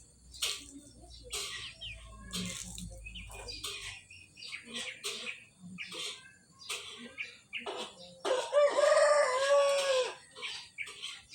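A rooster crows once near the end, one long call of about two seconds that falls away at its close. Before it come scattered short, sharp chirps and clicks.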